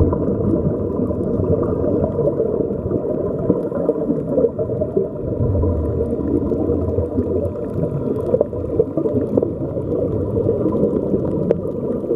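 Muffled underwater bubbling and rumbling through a camera housing, with air streaming out of Seawalker helmet-diving helmets as steady bubbles; the sound is dull and low with a few faint ticks.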